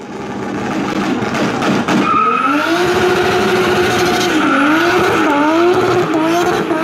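Car tyres squealing over a running engine, a wavering pitched squeal coming in about two seconds in and bending up and down toward the end.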